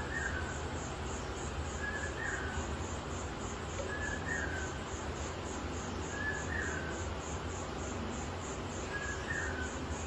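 A bird calling, one short call repeated about every two seconds, five times, over a steady low hum. A faint, rapid high-pitched pulsing runs underneath, like an insect.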